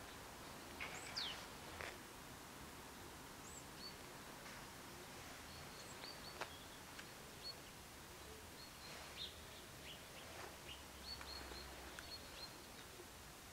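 Small birds giving short, high chirps at irregular intervals over faint steady background noise.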